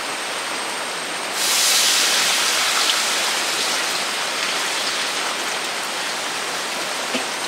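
Water poured from a clay pot into a large pan of masala on a wood fire, a steady splashing pour that starts about a second and a half in and slowly fades, over a constant background hiss.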